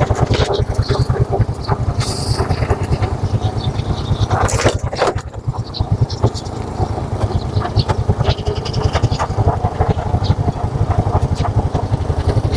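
Motorcycle engine running steadily while riding, with scattered knocks and rattles and a brief louder rush of noise near the middle.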